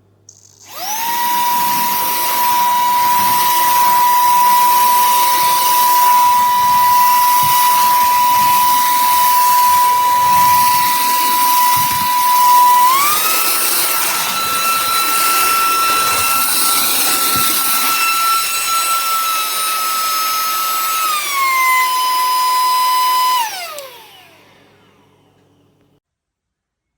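Cordless handheld vacuum cleaner's motor switched on, running with a steady high whine; about halfway through the whine steps up in pitch, drops back down a few seconds later, and then the motor is switched off and the whine falls away as it spins down.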